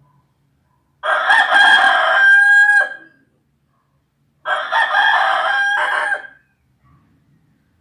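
Rooster crowing twice, two cock-a-doodle-doo calls each about two seconds long, the first ending in a drawn-out held note.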